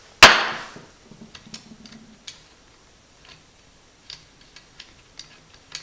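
A single sharp knock about a quarter second in, then faint, uneven clicks of a screwdriver backing a flathead screw out of the front of a Berthier rifle's stock.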